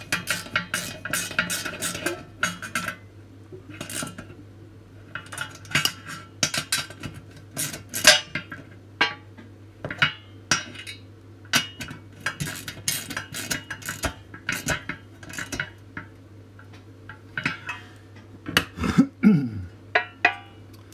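Nuts being tightened onto bolts inside a thin stainless-steel stove shell with a hand driver: irregular metallic clicks, clinks and scrapes of tool and nuts against the sheet metal.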